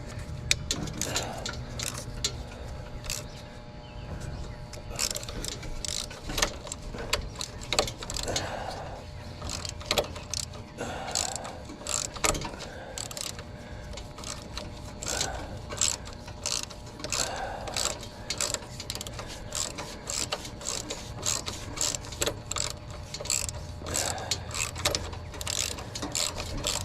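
Ratchet wrench clicking in runs as bolts are worked loose on a lawn tractor.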